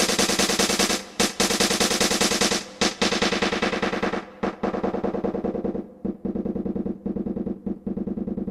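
Voge 525 DSX motorcycle's parallel-twin engine running as the bike is ridden, with a rapid pulsing exhaust note. It dips briefly several times as the throttle is eased and reopened, and grows duller and quieter in the second half.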